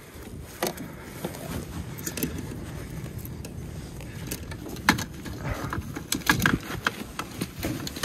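Irregular knocks, clicks and rustling as gloved hands handle a carp in a wire-mesh landing net to unhook a jig, over a low rumble of wind on the microphone.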